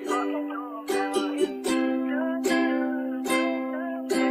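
Background music: an instrumental passage of a Hindi pop song, with plucked strings strummed about once every second over held notes.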